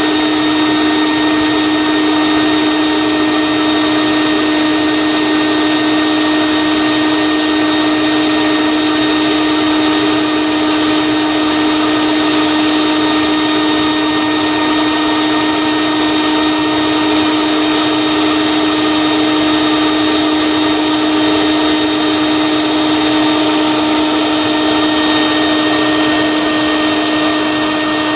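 Electric blower drawing gas through a wood gasifier, running at a constant speed: a steady whine over a rushing of air.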